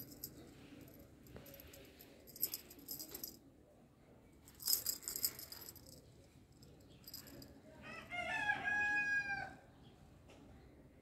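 A long pitched animal call about eight seconds in: a quick rising run of short notes settling into one held note, the loudest sound. Before it, two short bursts of light jingling rattle.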